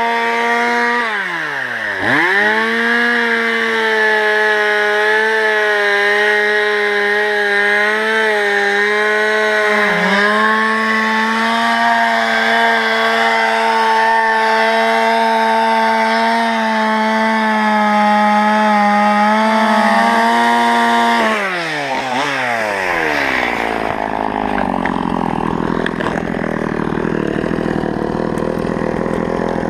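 Two-stroke chainsaw held at full throttle, cutting through a fallen spruce log with a dull chain that cuts poorly; its revs dip briefly twice. About 21 seconds in the throttle is released and the engine winds down to a steady idle.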